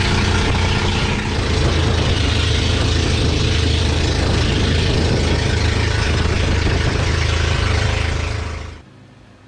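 Motor boat's engine running steadily under way, a deep steady drone with a loud rushing noise over it; it cuts off suddenly near the end.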